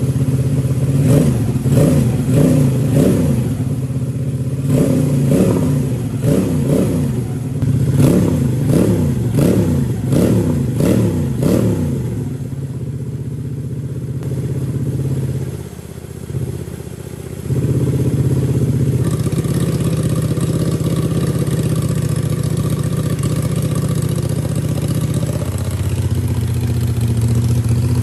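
Homemade 250cc L-twin engine, built from scooter engine parts, blipped through a quick series of revs, one after another, for about the first twelve seconds, exhaling through a carbon-look slip-on muffler. It then settles to a steady idle that sags briefly a little past the middle before picking up again.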